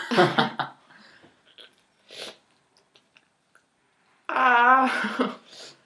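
Muffled voices and breathing from people with mouths stuffed with marshmallows: a short muffled noise at the start, a sharp breath about two seconds in, and a longer wavering muffled voice near the end.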